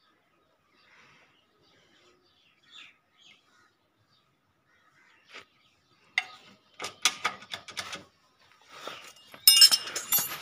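Metal clinking and clattering of a wrench working on a motorcycle's gear-change lever and its bolt, starting about six seconds in and loudest near the end. Before that it is nearly quiet, with a few faint high chirps.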